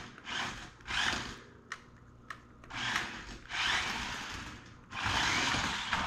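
Toy-grade RC stunt car's small electric drive motors whirring in five short stop-start bursts, with two light clicks in a pause about two seconds in.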